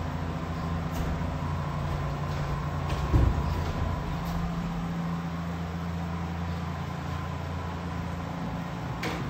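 Steady low mechanical hum, like an engine running, with a single thud about three seconds in.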